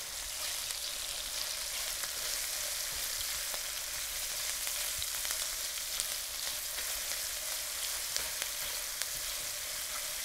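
Mushrooms, carrots and thyme sizzling steadily in a stainless steel skillet as they are stirred with a spatula, with a few light taps and scrapes of the spatula against the pan.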